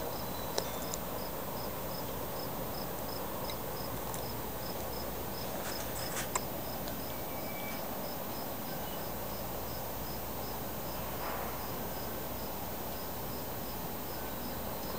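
An insect chirping steadily, about three short, high, evenly spaced chirps a second, over a steady background hiss. A few faint clicks come near the start and about six seconds in.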